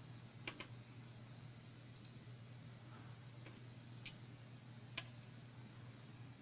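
A few faint, sharp metal clicks, about five at uneven intervals, from small lock parts being handled while the pins and springs go back into a padlock core.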